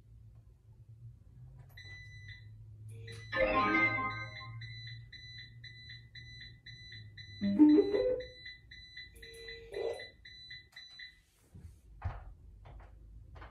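Hoverboard with go-kart attachment beeping: a fast run of high electronic beeps for about nine seconds as it is switched on while its battery is dead. Louder electronic sounds break in about three and a half seconds in and again about seven and a half seconds in, and a few short knocks follow near the end.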